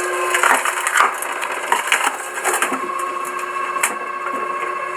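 Cone-shaped wood splitter driving into a log, the wood cracking and splintering in irregular sharp snaps over the steady hum of the machine's motor.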